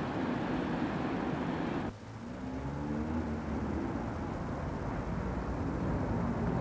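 Steady rushing outdoor noise that cuts off sharply about two seconds in. It is followed by city street traffic, with vehicle engines passing at a low hum.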